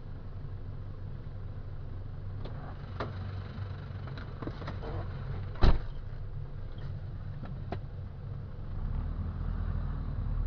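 Motor vehicle engine idling steadily, with scattered light clicks and one loud sharp thump a little past halfway. The engine sound grows louder near the end.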